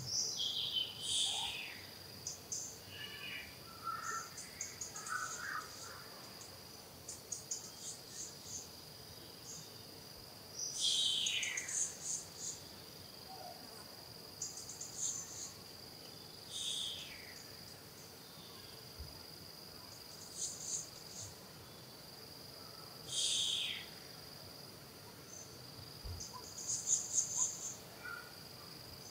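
Insects droning steadily on one high note. Over the drone, a falling call repeats about every five or six seconds, and clusters of short high chirps come in between.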